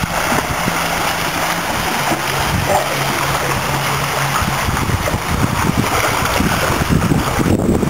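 Pool water sloshing and splashing close to the microphone as swimmers paddle past.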